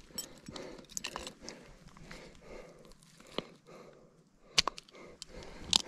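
Quiet handling noises: scattered small clicks and rustles, with a few sharper ticks in the second half.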